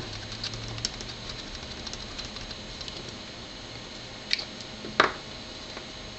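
Light clicks and taps of small items being handled on a workbench, including a flux bottle. Two sharper knocks come about four and five seconds in, the second the louder.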